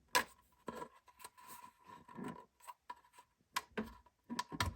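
Fingernails picking and scraping at a small pen box, trying to pry it open: scattered light clicks, taps and scratches, with a sharper click right at the start and a cluster near the end.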